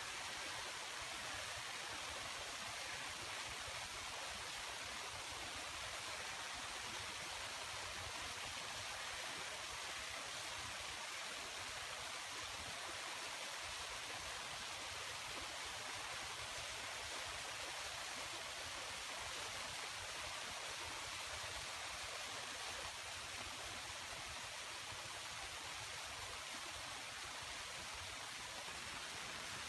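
Steady, even rushing of water, as from a forest stream, with no change throughout; the cock-of-the-rock gives no calls.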